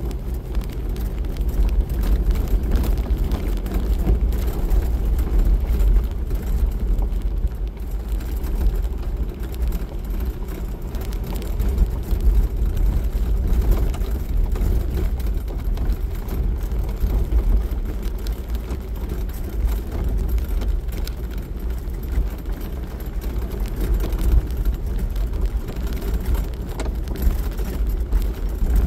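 Jeep Wrangler driving on a gravel road: a steady low rumble of engine and tyres on gravel.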